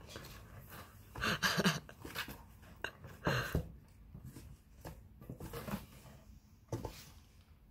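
Irregular scratchy rustles and scuffs of a cat batting at a wand toy from inside a cardboard box, paws and toy brushing against the cardboard, with louder bursts about a second and a half in and again at about three and a half seconds.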